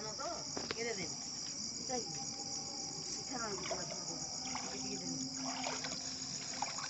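A steady, high-pitched insect chorus with a faint even pulsing runs throughout, with indistinct voices of people in the background.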